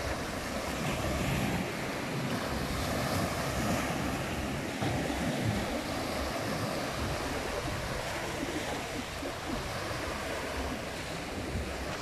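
Small sea waves breaking and washing up on a sandy beach in a steady wash, with wind buffeting the microphone in uneven low rumbles.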